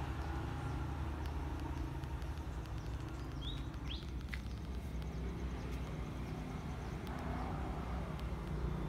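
Outdoor background: a steady low rumble, with two or three short high bird chirps about three and a half to four and a half seconds in.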